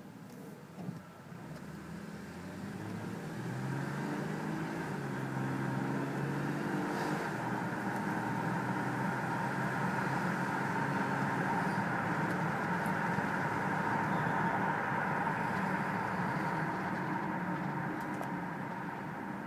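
Subaru 3.0-litre flat-six car driving: the engine note rises as it accelerates over the first few seconds, then settles into steady running and road noise.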